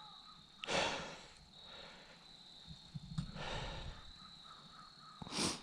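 A hiker's heavy breathing on a steep uphill climb: three loud breaths a couple of seconds apart. Underneath, a steady high trill of crickets.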